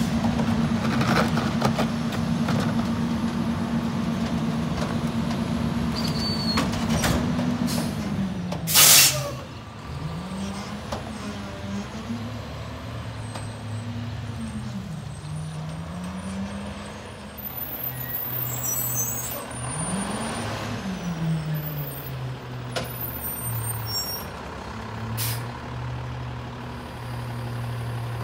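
McNeilus rear-loader garbage truck's engine held at a steady raised speed while the packer cycles, then dropping back. A loud, short hiss of the air brakes releasing about 9 seconds in, then the engine revving up and shifting through its gears several times as the truck pulls away, settling to a steady idle near the end.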